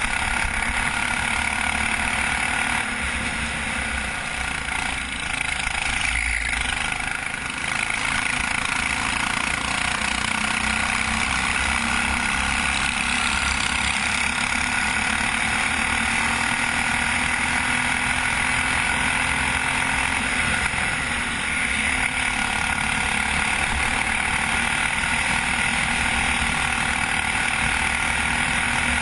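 Racing go-kart engine running hard at high revs, heard from on board the kart, easing off briefly a few seconds in and again about two-thirds of the way through.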